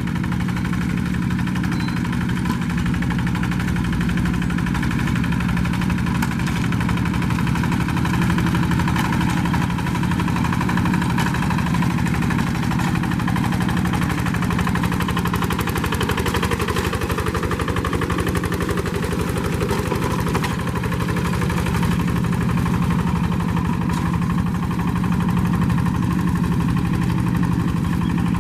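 Diesel engine of a two-wheel rice-field tractor running steadily at an even speed.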